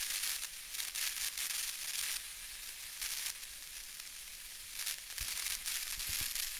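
Rushing water of a trout stream: a steady hiss that flickers unevenly, with a few low knocks near the end.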